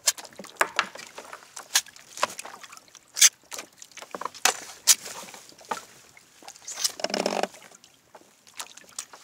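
Water slapping and knocking against a kayak's hull: irregular sharp clicks and small splashes, with one louder half-second splash about seven seconds in.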